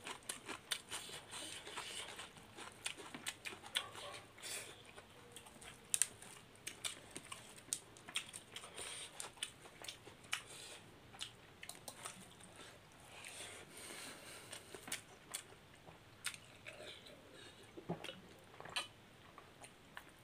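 Faint chewing and mouth sounds of people eating fish curry and rice by hand: many short, irregular wet clicks and smacks.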